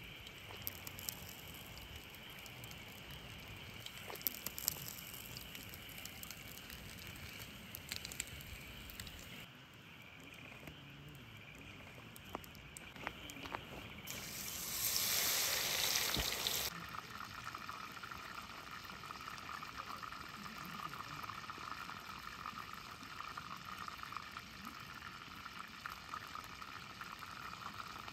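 Campfire burning: faint crackling with scattered pops, and a louder stretch of hissing for a few seconds about halfway through.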